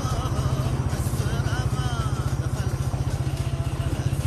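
A vehicle's engine and road noise while driving: a steady low drone with a fast, even pulse.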